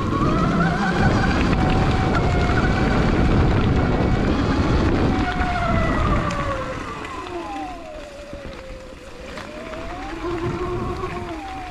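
Sur-Ron electric dirt bike's motor whining as it rides, with heavy wind noise for the first half. About seven seconds in, the whine falls in pitch as the bike slows, then rises and wavers again near the end.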